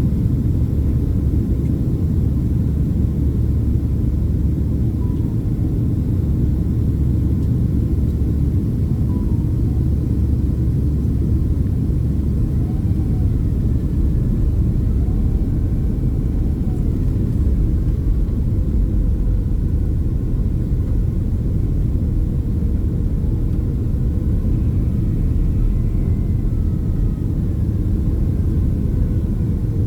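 Boeing 767-300ER airliner cabin noise heard from a rear main-cabin seat: a steady, loud low rumble of engines and rushing air that does not change.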